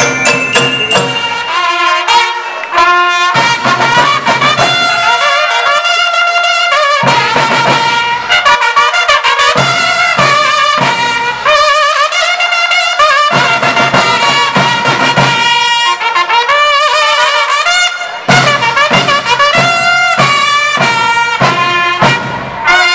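A school marching band playing, with trumpets and other brass carrying the melody over a drum section. The low, drum-heavy part drops out for short stretches, leaving the brass alone.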